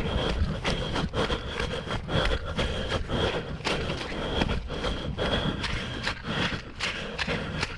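A runner's footsteps on a trail, a steady rhythm of a little over two strikes a second, over a low rumble.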